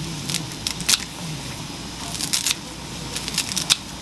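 Kitchen scissors snipping garlic chives into a pot: a series of sharp snips in small clusters. Underneath is the steady hiss of the broth just coming to the boil.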